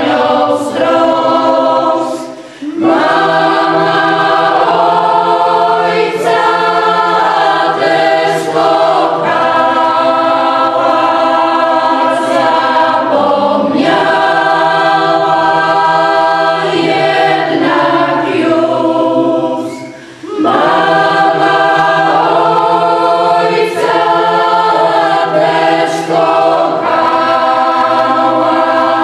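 A group of voices, mostly women, singing a folk song together unaccompanied, in long held phrases. They pause briefly between phrases a couple of seconds in and again about two-thirds of the way through.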